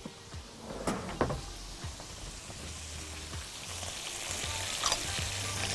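Meat searing in a hot pan with garlic and rosemary: a fine steady sizzle that grows louder toward the end, with a few light knocks in the first second or so. The meat is browning without releasing water.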